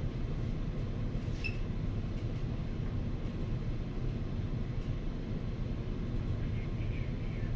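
Room tone: a steady low rumble, with one short, faint high squeak about one and a half seconds in.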